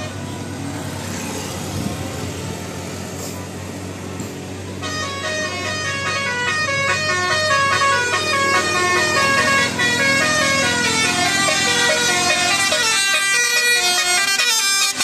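Telolet multi-tone horn playing a fast melody of short stepped notes, quieter at first and louder from about five seconds in.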